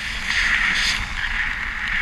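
Steady rushing wind noise over the camera, getting a little louder about a third of a second in.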